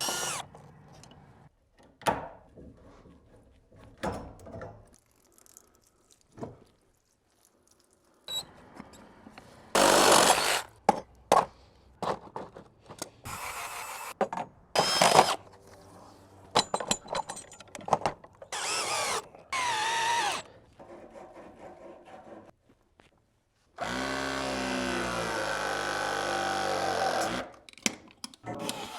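Hand and power tool work on a hose faucet: scattered clicks and knocks, several short bursts of tool noise, and a steady power-tool run of about three seconds near the end.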